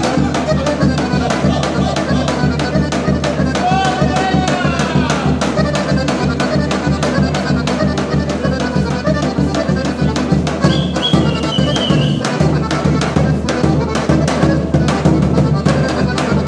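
Folk music with a steady rhythm of strokes on a large rope-tensioned double-headed bass drum, beaten with a stick and a thin switch, over a sustained melodic accompaniment.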